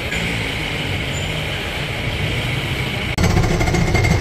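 Diesel truck engine idling with a rapid, even clatter. A little after three seconds the sound cuts abruptly to a louder, deeper run of the engine.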